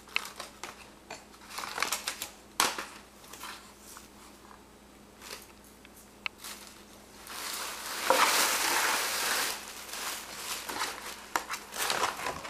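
Tissue paper and a gift bag crinkling and rustling as a baby grabs and pulls at them, with scattered crackles and one longer, louder rustle lasting about two seconds, some seven seconds in.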